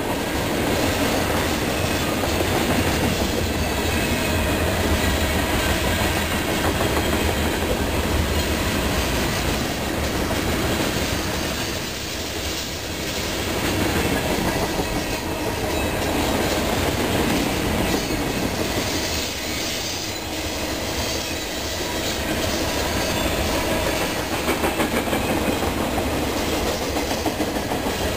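Freight train's tank cars and covered hoppers rolling past close by: steel wheels clattering over the rail joints in a continuous rumble that swells and eases every few seconds.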